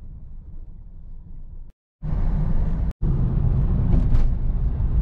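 Road noise inside a moving car on a highway: a steady low rumble of tyres and engine. It is quieter for about the first two seconds, then cuts out briefly and comes back much louder with more hiss.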